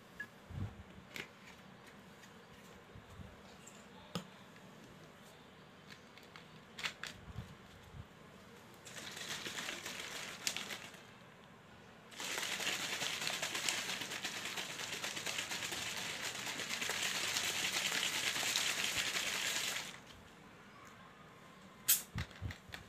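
Carbonated soda in a plastic bottle fizzing with a crackling hiss, in two spells. A softer spell comes about nine seconds in, and a louder one starts about twelve seconds in and cuts off near twenty seconds. A few light clicks and knocks from handling the bottle fall around them.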